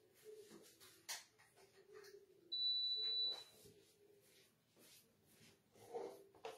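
Induction cooktop beeping as it is switched on to heat the pan: one steady high-pitched beep just under a second long, about two and a half seconds in, and a brief second beep right at the end.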